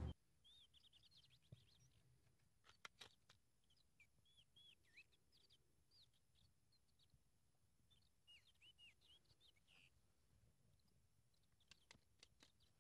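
Near silence: faint birds chirping, with a few soft clicks of a plastic CD jewel case being handled and opened, about three seconds in and again near the end.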